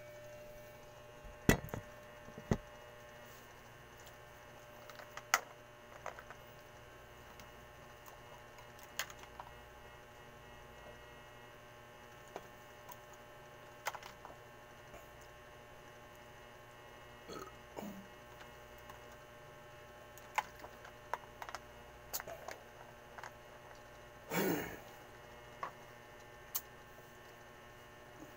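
Steady electrical mains hum in a small room, broken by scattered sharp clicks and knocks of things being handled, and one short rough burst about 24 seconds in.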